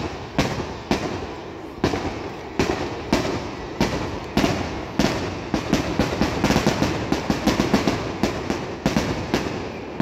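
Fireworks display: aerial shells bursting in sharp bangs, about one a second at first, then a rapid barrage of many bangs a second from about halfway in.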